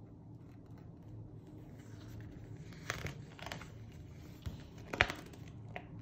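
A page of a hardcover book being handled and turned: paper rustling and crinkling, with a few sharp rustles about three seconds in and again near the end.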